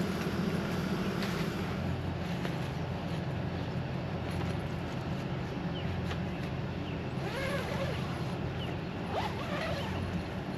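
Portable air conditioner running with a steady low hum inside the tent. A few short, high chirps come through about three quarters of the way in.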